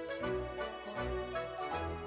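Background music with a steady beat and a moving melody.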